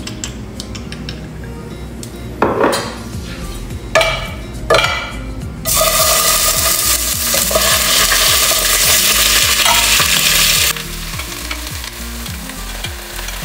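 Raw chicken pieces going into hot oil in a pot: a few knocks at first, then a loud sizzle starts suddenly about six seconds in and drops to a quieter frying sizzle near eleven seconds.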